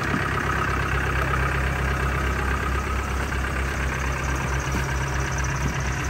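Land Rover Discovery's 200Tdi four-cylinder turbodiesel idling steadily.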